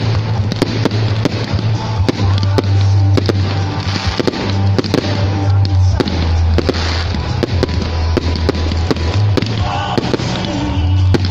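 Fireworks going off in quick succession: many sharp bangs and crackles from aerial shells and rockets. Underneath runs music with a deep bass note that shifts every few seconds.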